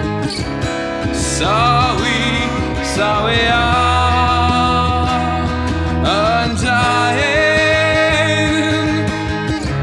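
Acoustic guitar played with a man singing over it in long, wavering notes, the voice rising in about one and a half seconds in and again about six and a half seconds in.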